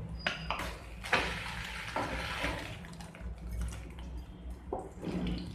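Oil sizzling in a hot frying pan under an egg paratha while a spatula presses and scrapes across it, giving several short scrapes, with the sizzle loudest a second or two in.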